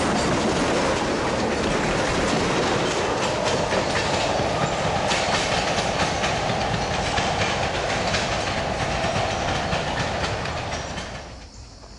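Railroad tank cars rolling past on steel wheels with a steady clickety-clack over the rail joints. The sound falls away sharply near the end.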